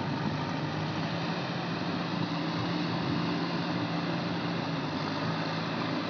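JCB backhoe loader's diesel engine running at a steady speed, with an even hum and a wide mechanical noise.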